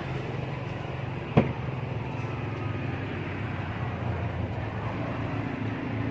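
Steady low rumble of a running motor or vehicle traffic, with one sharp click about a second and a half in.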